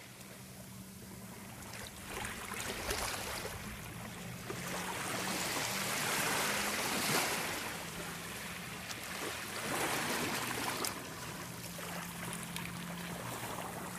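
Water sloshing and rushing, swelling and easing in waves, with a low steady hum underneath.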